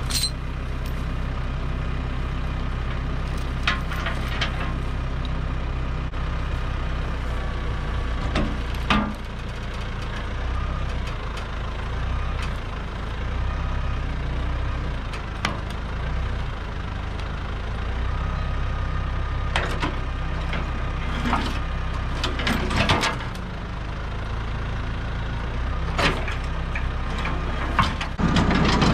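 New Holland T2420 compact tractor's diesel engine idling steadily, with scattered metallic clanks and rattles over it.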